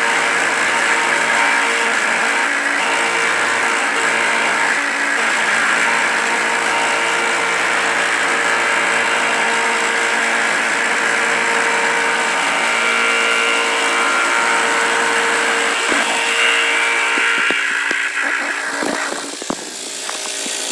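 CNC milling machine running and cutting metal on a wheel hub cap, a steady whine with a dense cutting hiss. The sound starts suddenly and thins out and breaks up near the end.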